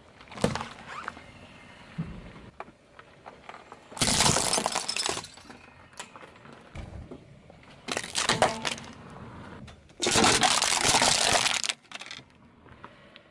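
A car tyre crushing a series of small objects (a plastic dessert cup, a bundle of wooden toothpicks, aluminium drink cans), heard as several separate bursts of cracking and crunching. The longest and loudest come about four seconds in and about ten seconds in, with quieter gaps between.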